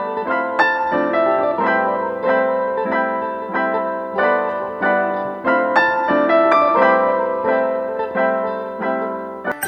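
Background piano music, notes struck at an even pace of about two a second. Just before the end it cuts to a brighter, higher tune.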